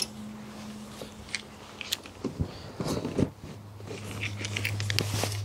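Bungee strap being stretched and hooked onto a push mower's bag frame: irregular clicks, scrapes and rustles of the cord and its metal hook against the frame and the fabric grass bag.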